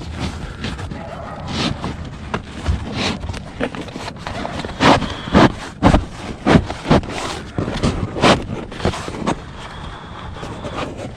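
Roof tiles being handled and shifted: a run of irregular sharp knocks and clatters with scraping between, the loudest knocks about five to seven seconds in.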